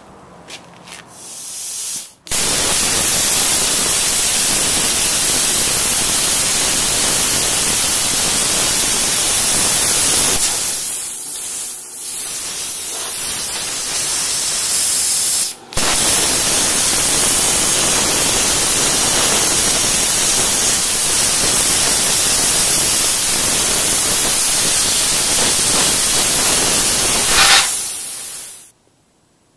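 Hypertherm plasma cutter cutting steel plate: a loud, steady hiss of the air-plasma arc. It cuts out briefly twice, once a couple of seconds in and once about halfway, and stops shortly before the end.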